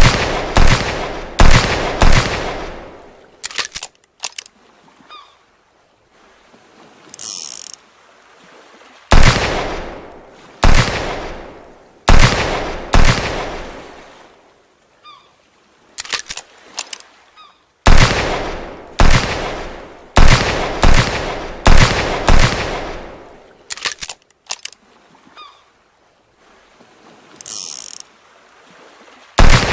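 Homemade revolver-shot sound effect: sharp shots in quick strings of several, each trailing off in an echo, with pauses of a few seconds between strings and a brief hiss in two of the pauses.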